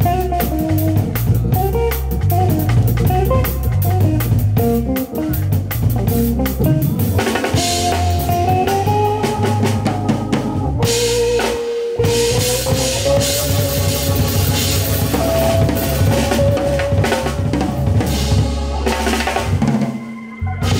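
A small live band playing: drum kit with busy snare and cymbal work, hollow-body electric guitar and an electric stage keyboard carrying a melody line. The band breaks off for a moment about twelve seconds in, then plays on, thinning out near the end.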